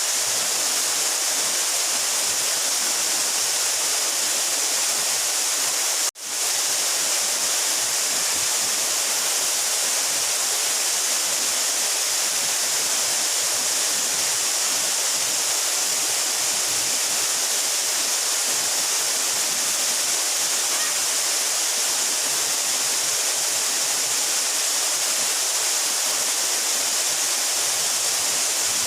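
Steady rush of a 12-metre mountain waterfall, an even hiss strongest in the high end. About six seconds in, the sound cuts out for an instant, as at an edit, and resumes unchanged.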